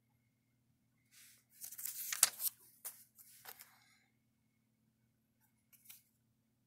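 A page of a small paper booklet being turned and pressed flat: a rustle of about three seconds with a sharp crackle of paper in the middle, then a faint brief brush of paper near the end.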